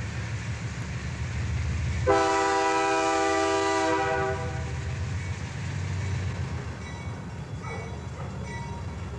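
Approaching diesel freight locomotive rumbling low. About two seconds in, its air horn sounds one long chord of several notes for about two seconds.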